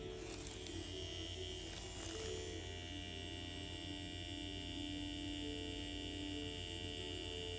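Permanent-makeup machine giving a steady electric hum, under soft, slow background music with held notes.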